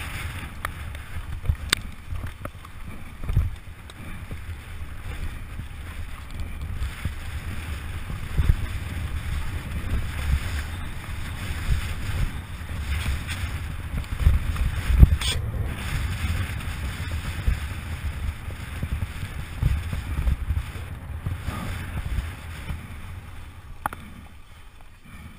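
Mountain bike ridden fast down a dirt trail, heard from the rider's helmet camera: wind buffeting the microphone and tyres rumbling over the dirt, with sharp rattles and knocks as the bike hits bumps, the loudest about fifteen seconds in.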